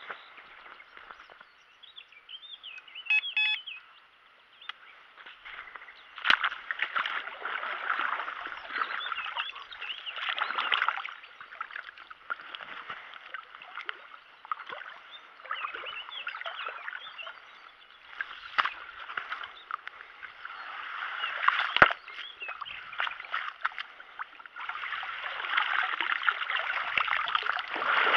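A landing net being moved through shallow lake water: uneven sloshing and splashing that comes in surges and grows louder near the end as the net is lifted with water streaming off the mesh. A single sharp click sounds partway through.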